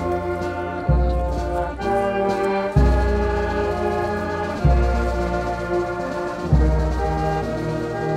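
Slow instrumental music: sustained chords over a deep bass note, a new chord struck about every two seconds.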